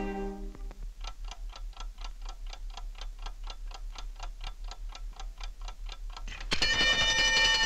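Cartoon wind-up alarm clock ticking evenly, about four ticks a second, as picked up through a stethoscope pressed against it. Near the end a loud ringing breaks in as the alarm goes off.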